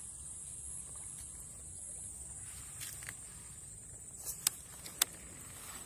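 Steady high-pitched insect drone, with a few sharp clicks near the middle and a louder single click about five seconds in.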